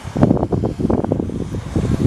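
Wind buffeting the microphone in irregular, gusting rumbles.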